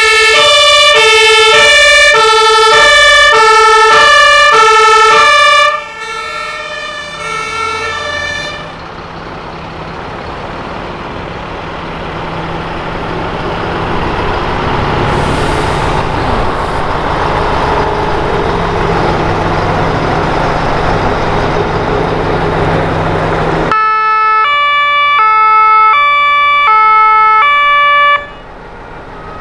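German two-tone fire-engine sirens (Martinshorn), switching between two pitches about twice a second, as fire engines pass one after another. The first fades out after about eight seconds. A large fire truck's diesel engine runs steadily in between. A second two-tone siren sounds for about four seconds near the end, then cuts off.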